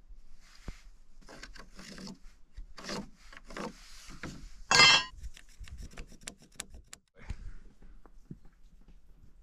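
Pencil scratching across rough-sawn lumber in short strokes, marking a line along a speed square, with one brief louder squeaky scrape about halfway through.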